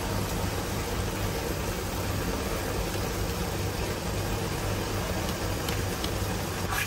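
Steady low hum with an even hiss over it, kitchen background noise with a few faint ticks near the end.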